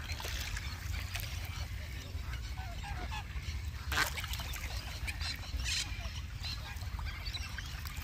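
Park waterfowl calling: ducks and other birds give short scattered calls, with one louder sharp sound about four seconds in, over a low steady rumble.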